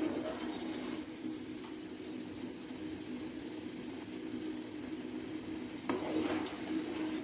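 Pot of water with betel leaves, ginger and lemongrass boiling, a steady bubbling hiss as the herbal decoction simmers and is stirred. A spoon knocks against the pot about six seconds in, followed by a brief louder stir.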